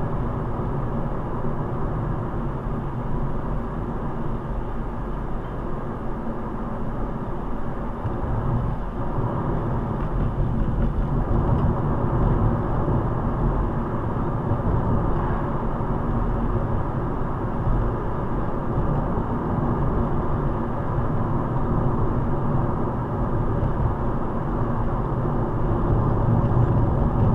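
Steady road and engine noise of a car driving, heard from inside the cabin: a low rumble with tyre noise that grows slightly louder after about ten seconds.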